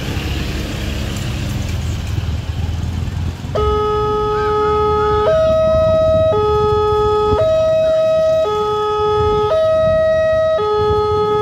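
Railway level-crossing warning alarm starting about three and a half seconds in: an electronic two-tone signal alternating between a low and a higher note about once a second, warning of an approaching train. Road traffic runs underneath before it starts.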